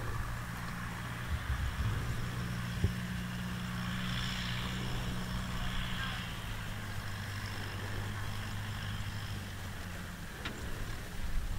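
Farm tractor's diesel engine running steadily under load as it hauls a loaded trailer across a field, with a low, even engine note.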